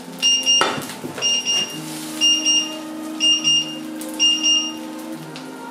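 An electronic alarm beeping, a high-pitched double beep about once a second, that stops near the end. About half a second in there is a short burst of noise as the hot frying pan of fish fingers is moved.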